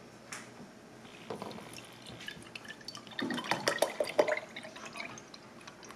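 A milky drink poured from a carton into a glass tumbler. The liquid splashes and fills the glass, loudest about halfway through, then tapers off near the end.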